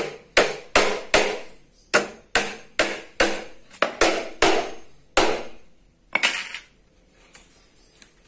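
Hammer driving nails into pallet and crate wood, about a dozen sharp blows at two to three a second, stopping about six seconds in.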